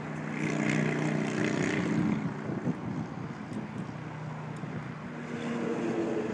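Road traffic: a motor vehicle's engine hum and tyre noise swell up about half a second in and fade, then another swells up near the end.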